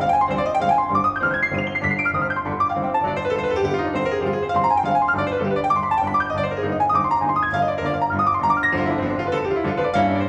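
Grand piano played fast by two pianists: rapid scale runs sweeping up and down, one after another, over lower held notes.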